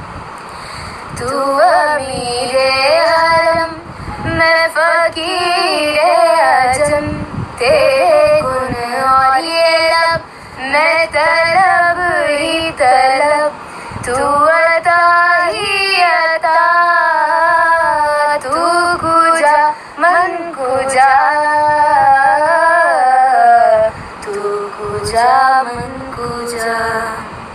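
A high voice singing a slow melody, with long held notes and wavering vibrato, phrase after phrase with short breaths between them.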